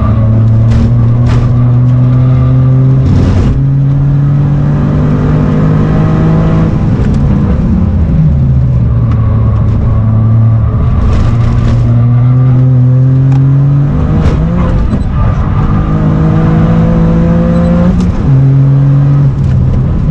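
Toyota GR Yaris's turbocharged 1.6-litre three-cylinder engine under hard driving, heard from inside the cabin: its pitch climbs and then drops back several times with the throttle and gear changes.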